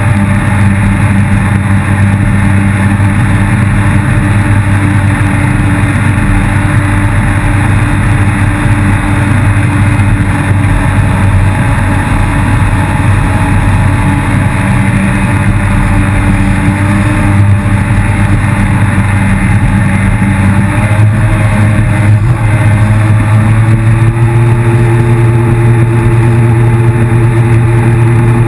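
Yamaha FX160 HO jet ski engine running loud and continuous at speed. The engine note shifts about three quarters of the way through and settles into a steadier tone near the end.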